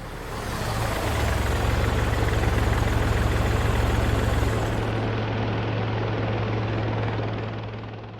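Helicopter rotor and engine noise, steady, fading in at the start and fading out near the end.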